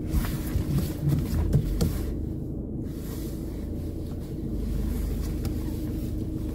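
Car engine running at low speed while manoeuvring, a steady low hum heard from inside the cabin, with a few light clicks in the first couple of seconds.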